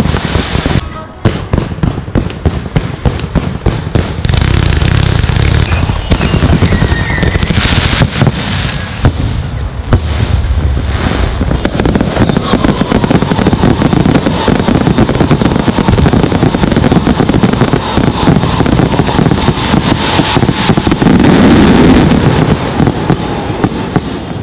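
Fireworks display: a dense, continuous barrage of launches, bangs and crackling from aerial shells and ground fountains, with many sharp reports. It fades away near the end.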